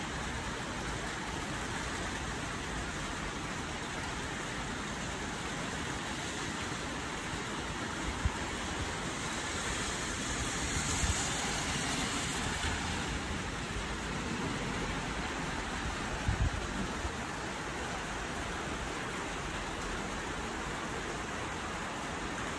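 Heavy rain falling as a steady hiss, swelling a little about halfway through, with a few short low thumps.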